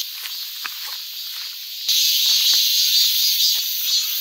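A steady, high-pitched insect chorus of summer forest insects, louder from about two seconds in, with faint footsteps on a dirt trail.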